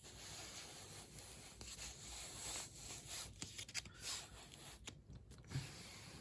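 Faint rustling and small clicks of a small toy car being handled and turned over in the hands close to a phone microphone.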